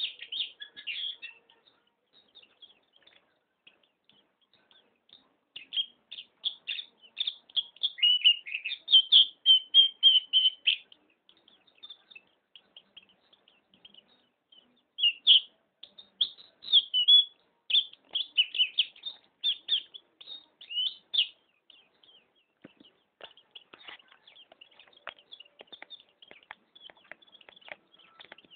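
Pleci (white-eye) singing in bouts of rapid, high twittering chirps separated by short pauses, with fainter quick ticking calls near the end.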